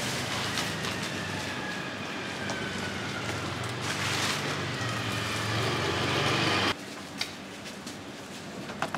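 A motor vehicle engine running close by on the street, a steady hum with a slowly falling whine, growing louder. It cuts off abruptly about two-thirds through, leaving quieter street ambience with a few light clicks.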